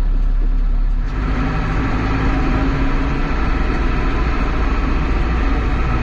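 Sanderson 725c loader's diesel engine running, heard from inside its cab. About a second in the revs pick up and the sound grows fuller as the machine is driven on.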